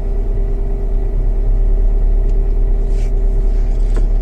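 Car engine idling steadily, heard from inside the cabin, left running to warm up.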